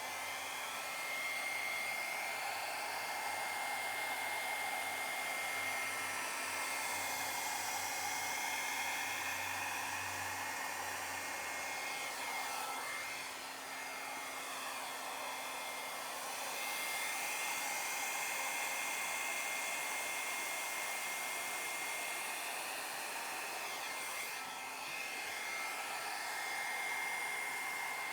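Travel-size hair dryer running steadily, a rushing blow of air with a thin high motor whine, used to blow the thinned acrylic paint of a Dutch pour. Its level dips slightly a couple of times as it is moved.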